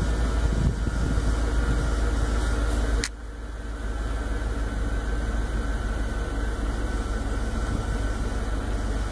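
2002 Chevrolet Suburban's V8 idling just after a restart, heard from inside the cabin as a steady low hum. About three seconds in there is a click, and the hum drops to a quieter steady level.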